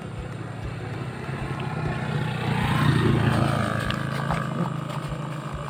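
A motor vehicle passes close by, its engine growing louder to a peak about three seconds in and then fading away.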